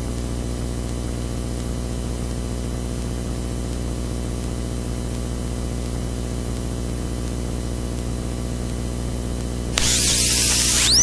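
Steady low hum with a hiss over it. About a second before the end, a sudden louder rushing noise cuts in.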